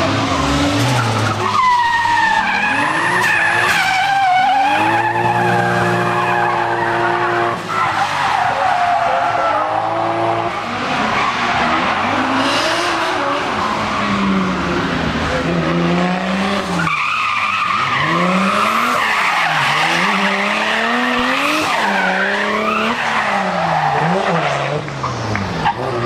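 Drift cars, a Mazda MX-5 among them, sliding through a hairpin with tyres squealing. Their engines are revved hard, the pitch swinging up and down again and again as the throttle is worked through the slide.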